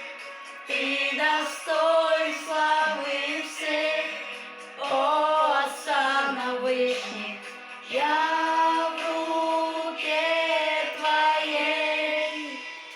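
Music: a song with a woman singing held, sustained phrases.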